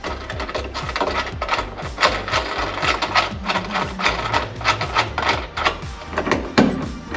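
Rapid mechanical clicking of a ratchet tightening bolts, over background music with a steady beat.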